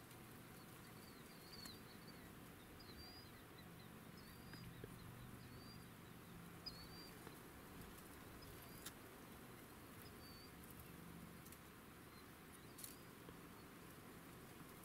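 Near silence, with a small bird giving short, faint, high chirps on and off about once a second, and a couple of faint clicks.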